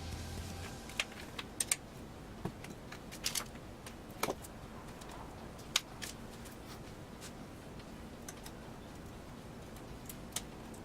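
Scattered light clicks and taps of small hard parts being handled, about a dozen at uneven intervals, the sharpest a little over a second in, near four seconds and near six seconds.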